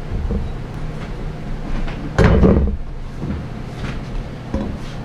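Light knocks and clatter of a metal speed square and pencil being handled against a wooden rafter board, with one louder knock about two seconds in, over a low steady hum.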